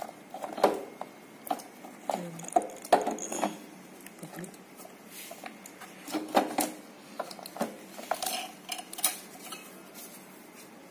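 A 12-volt battery being worked out of the plastic body of a kids' electric ride-on motorbike by hand. Irregular clicks, knocks and rattles of plastic and metal parts, sparse in the middle and near the end.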